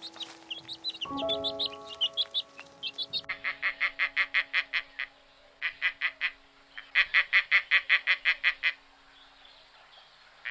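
Baby chicks peeping for about three seconds, then a turkey tom gobbling in three rattling runs of rapid pulses, about seven a second. Soft background music plays underneath.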